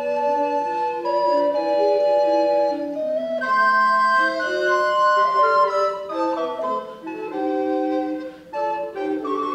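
Recorder quartet playing together in four parts: sustained notes in several voices at once, moving by steps.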